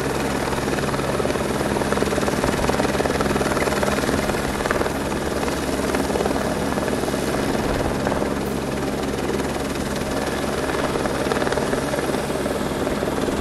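Police helicopter flying, its rotor beating fast and steadily over a constant engine hum.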